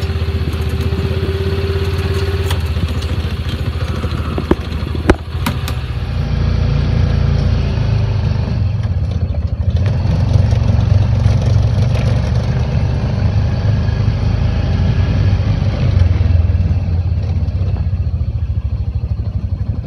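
Side-by-side utility vehicle's engine running steadily as it drives, a low hum throughout. A few sharp knocks come about five seconds in, the loudest of them the loudest sound in the stretch.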